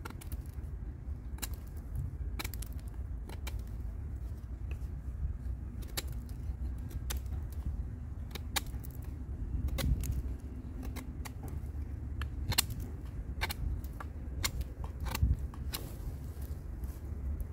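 Kubey 269 knife's flat-ground blade shaving a wooden stick in short, irregular strokes, each cut a sharp crisp scrape. A steady low rumble runs underneath.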